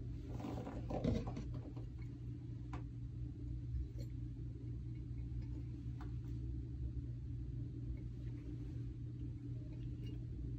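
Steady low room hum with a brief rustle at the start and a few faint, scattered clicks of a glass carafe being handled on a wooden tabletop.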